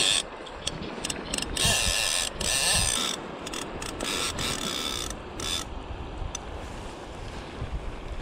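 Fly reel's click-and-pawl ratchet buzzing in rapid stuttering runs while a hooked sea trout is played on the rod.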